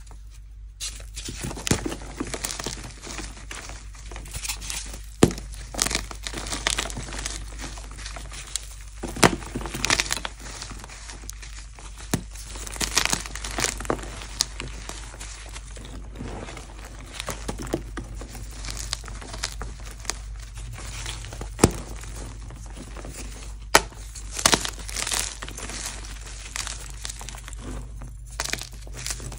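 Blocks of soft pasted gym chalk crushed and crumbled by hand: dry, gritty crunching and crumbling, with a sharp snap every few seconds as a chunk breaks off.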